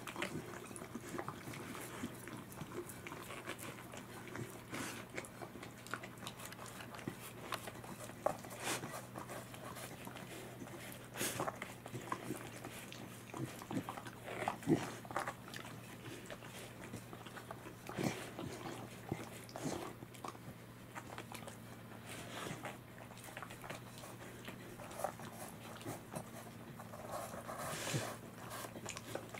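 Welsh corgis licking a plate clean after a meal of saury fish: irregular wet licks, smacks and small clicks of tongue and plate. A low steady hum lies underneath.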